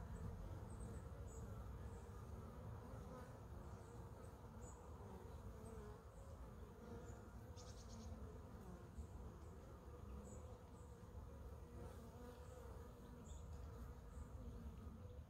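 Honeybees flying in and out at a wooden hive entrance: a faint, steady buzzing hum that wavers in pitch as bees pass. A few short high chirps sound over it, the loudest a brief rapid trill about halfway through.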